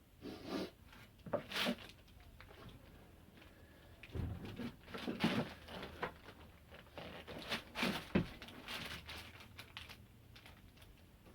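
Irregular bursts of rustling and crinkling, with some tearing-like sounds, as insulation material is handled. The loudest bursts come about halfway through and near the end.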